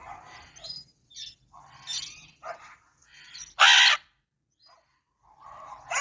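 Green-winged macaws squawking: a string of short, harsh calls, the loudest and longest about three and a half seconds in, then a pause of about a second before more calls near the end.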